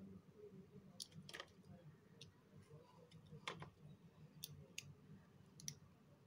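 Soft, irregular clicks and crackles of a blade cutting and chipping into a bar of soap, pieces snapping off one at a time.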